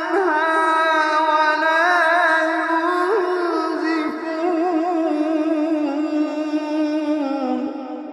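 Melodic Quran recitation: a single voice drawing out one long, ornamented note that wavers in pitch, dips lower near the end and fades.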